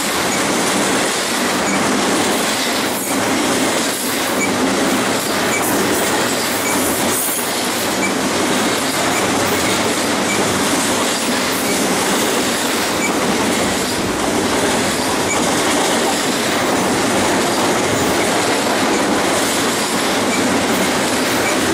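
Double-stack intermodal well cars of a BNSF freight train rolling past close by: steady, loud wheel-on-rail noise with a few clicks.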